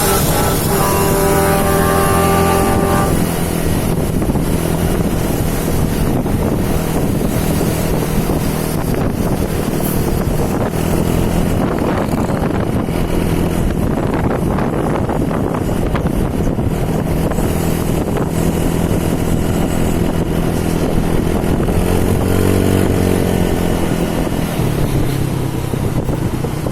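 Bus telolet horn sounding a chord of musical notes for the first few seconds, then a bus's diesel engine running steadily and loudly, with a brief rising and falling tone near the end.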